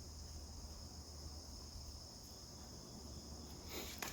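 Faint room ambience: a steady high-pitched whine or trill over a low hum, with a brief scrape or rustle near the end.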